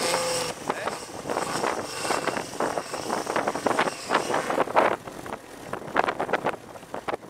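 Sand buggy with a Ford engine revving hard in uneven bursts as it claws its way up a steep sand dune.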